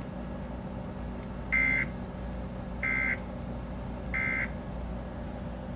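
Emergency Alert System end-of-message data bursts: three short, buzzy two-tone bursts about a second and a half apart, signalling the end of the broadcast alert. A faint steady low hum lies underneath.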